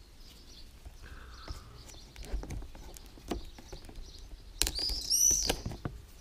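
Small clicks and scrapes of a pocket knife cutting the seal on a cardboard box, with birds chirping several times near the end.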